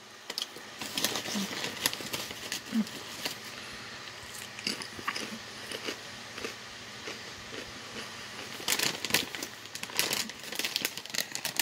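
A person chewing a mouthful of kettle-cooked sea-salted potato chips close to the microphone: crisp, irregular crunches that come thickest in the first few seconds and again near the end.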